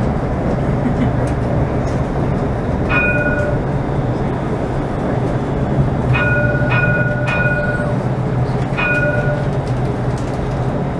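Alstom Citadis tram running slowly, heard from the driver's cab, with a steady low rumble. A short ringing chime sounds once about three seconds in and four more times in quick succession later on.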